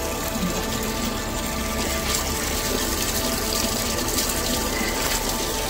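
Water running steadily from a tap into a plastic bucket, with splashing as water is poured over a wet dog's coat.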